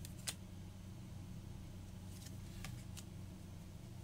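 Tarot cards being handled and turned over on a cloth-covered table: one sharp card click about a third of a second in, and a few softer clicks near the end, over a steady low hum.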